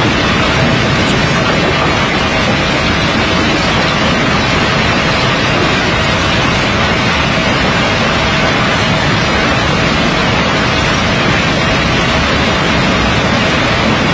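Steady loud rushing noise with a faint steady hum, from a conveyor carrying river pebbles out from under the stone pile.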